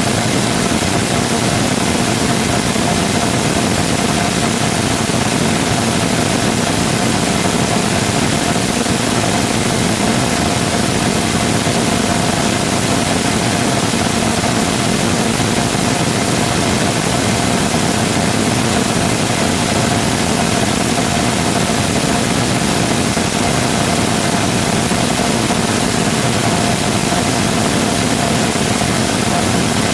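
3D-printed full-scale rotating detonation rocket engine combustor in a long, continuous hot-fire: a loud, unbroken rushing noise with one thin steady tone running through it.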